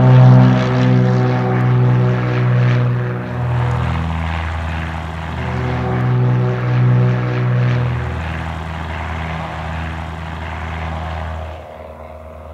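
Single-engine piston propeller airplane taking off: its engine and propeller drone is loudest as it lifts off, drops lower in pitch a few seconds in, and fades gradually as it climbs away.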